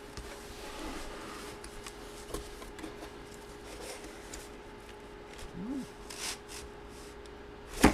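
Packaging being handled and opened by hand: quiet rubbing and scraping with scattered light clicks, and one sharp click near the end, over a faint steady hum.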